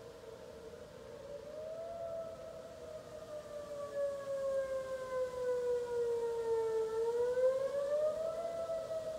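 Whelen electronic outdoor warning siren sounding its wail tone. The pitch rises, falls slowly for several seconds, then rises again near the end.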